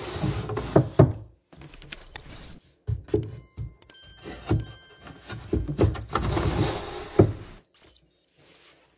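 Thin plywood divider panels sliding into the slots of a plywood organizer, scraping and knocking against the wood, with several sharp knocks. A short high chiming jingle comes in about four seconds in.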